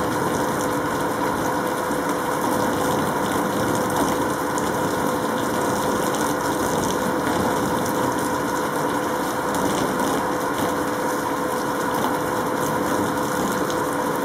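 Steady machine hum with a constant tone, holding an even level throughout, with no thunderclap.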